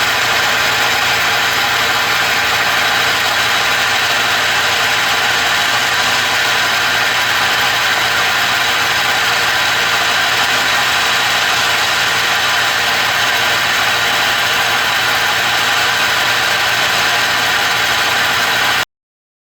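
Electrolux LTD11 washing machine spinning with a loud, steady grinding noise, a sign of the damaged bearing in its transmission. The noise cuts off suddenly near the end.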